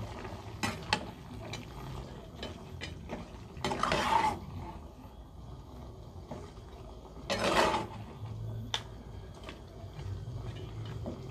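Metal spatula scraping and clinking against a wok while stirring a thick duck stew, in scattered short knocks with two longer, louder scrapes about four seconds and seven and a half seconds in.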